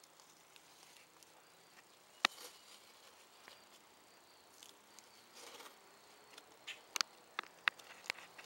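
Faint handling noise: a few sharp clicks, the loudest about two seconds in and several more near the end, with light rustling over a faint steady hiss.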